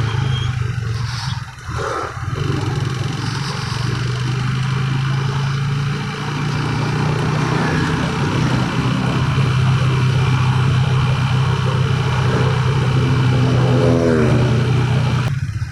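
Motorcycle engine running steadily while riding, with wind rushing over the microphone; the sound dips briefly about two seconds in, and a short rising tone comes in near the end.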